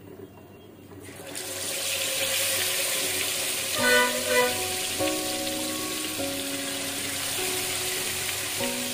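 Chicken leg pieces dropped into hot oil in an iron kadai, sizzling as they deep-fry. The sizzle starts about a second in and stays loud and steady.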